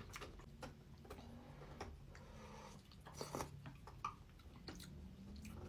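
Faint close-up chewing while eating instant noodles: soft mouth clicks and smacks at irregular intervals, with a couple of slightly louder clicks a little past the middle.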